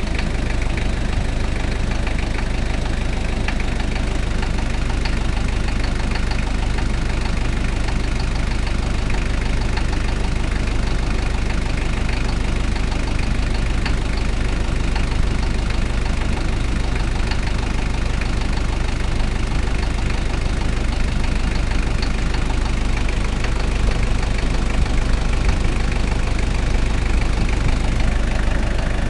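Toyota 1KZ-T four-cylinder turbo-diesel engine idling steadily with a diesel knock, running with the engine noise the owner is asking about.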